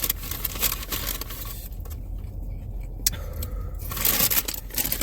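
Close rustling, scraping and crunching of people eating a fried chicken sandwich, in irregular spells, with a single sharp click about three seconds in.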